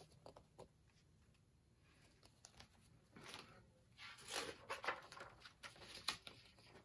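Faint rustling of a picture book's paper pages being handled and turned, a few soft flaps from about three seconds in until about six seconds in.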